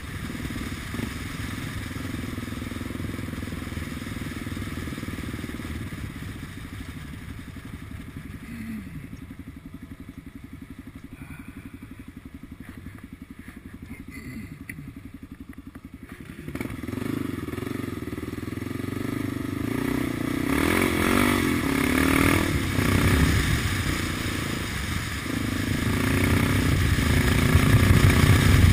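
Kawasaki KLR 650's single-cylinder four-stroke engine heard from on the bike while riding a dirt road. It runs steadily at first, falls back to a quieter low-rev rumble for about ten seconds, then picks up again a little past the middle and grows louder as the bike speeds up. A rushing wind noise builds with the speed.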